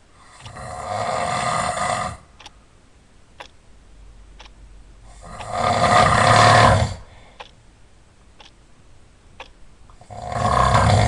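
Loud snoring: three long snores about five seconds apart, each lasting a second and a half to two seconds.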